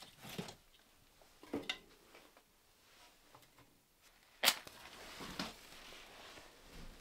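A wooden match struck on its box about four and a half seconds in, a sharp scratch that is the loudest sound, followed by a couple of seconds of the match flaring as it catches. Before it, kindling and wood handled at an open woodstove firebox: a few light knocks and rustles.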